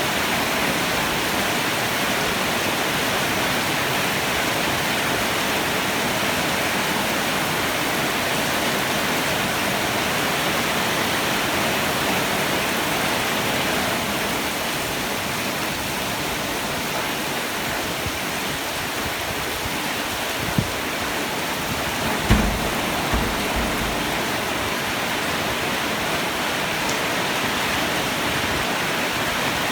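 Heavy rain pouring steadily, with no thunder. About two-thirds of the way through, a few short low thumps stand out above it.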